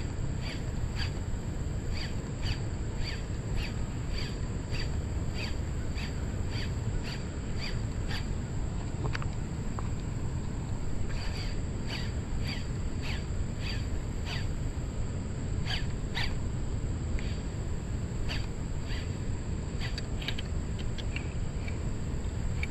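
Outdoor river ambience: short sharp chirping calls repeating about twice a second, pausing now and then, over a steady high thin drone and a low steady rumble.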